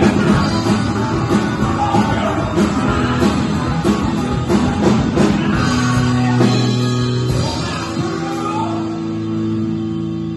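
Live rock band playing with electric guitars, drums and a lead vocal; about six seconds in the drumming stops and the band holds a sustained chord that slowly fades.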